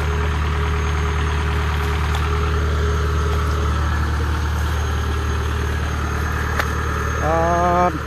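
A heavy machine's diesel engine idling steadily. A short, higher-pitched rising call sounds near the end.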